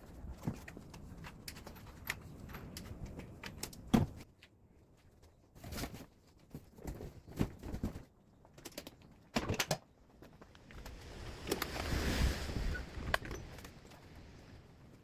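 Scattered clicks and knocks of hard objects being handled, with one sharp knock about four seconds in and a longer stretch of scraping and rustling with knocks around twelve seconds in.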